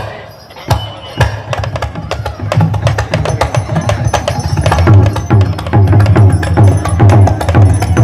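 Balinese gamelan percussion accompanying a Barong dance, with drums and fast clashing strikes. It opens with a few separate strikes, then the beating grows dense and louder over the first five seconds.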